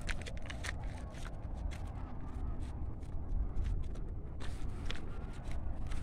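Footsteps crunching and scraping irregularly on a rocky mountain path, with wind rumbling on the microphone.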